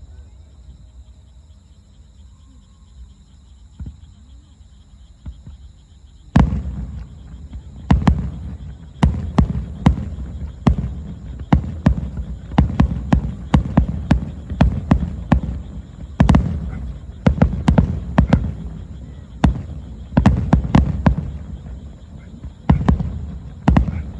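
Aerial firework shells bursting. After a few seconds of fading low rumble, a rapid barrage of sharp bangs starts about six seconds in, several a second with brief lulls.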